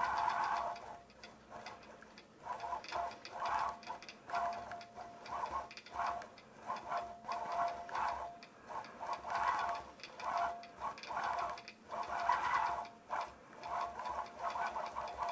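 Longarm quilting machine free-motion stitching: it runs steadily for about the first second, then in short start-stop spurts, about two a second, each spurt a brief steady whine.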